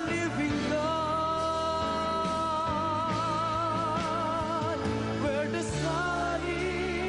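Christian worship song with band accompaniment. About a second in, a long note is held with vibrato for about four seconds over steady bass and chords.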